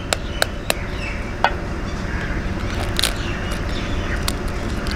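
A raw egg being tapped with a steel spoon to crack its shell: a few quick sharp taps, then a couple of single clicks as the shell is pulled apart. A steady low background noise runs under them.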